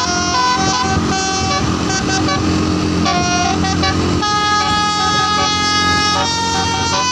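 A tour bus's 'basuri' telolet musical air horn playing a tune: stacked horn notes stepping from pitch to pitch, with one long held chord in the second half, over a low engine rumble.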